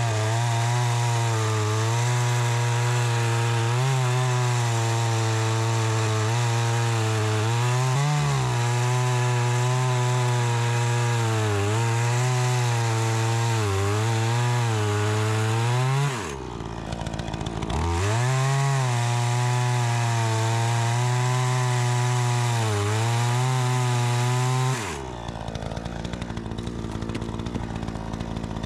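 Troy-Bilt 20-inch two-stroke gas chainsaw running at full throttle while cutting wood, its pitch dipping slightly under load, on a freshly adjusted carburetor. It drops to idle about 16 seconds in, revs back up two seconds later, and near the end falls back to a steady idle.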